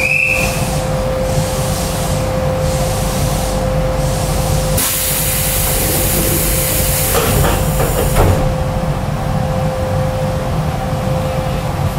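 Keisei 3700-series train car standing at a platform with a steady electrical hum. About five seconds in comes a loud hiss of compressed air lasting about three seconds, with a few knocks near its end as the pneumatic doors slide shut.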